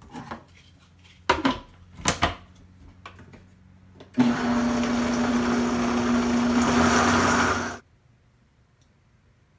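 Two plastic knocks as the lid is fitted onto a Vitamix blender's container. Then the Vitamix motor runs steadily for about three and a half seconds, blending dry seasonings into thick tahini paste, and cuts off suddenly.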